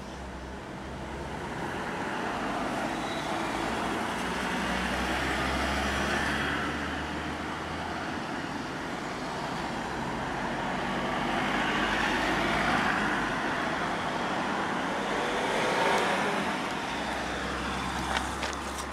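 Street traffic passing: a steady noise of cars that swells and fades several times over a low rumble.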